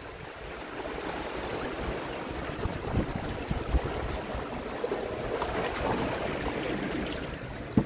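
Small sea waves washing and splashing over shoreline rocks, a steady rush of water, with a few short low thumps of wind on the microphone.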